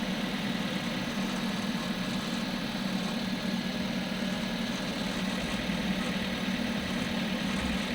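Hyundai Creta 1.6 idling steadily with an extraneous grinding noise from its manual gearbox, the fault the owner is recording.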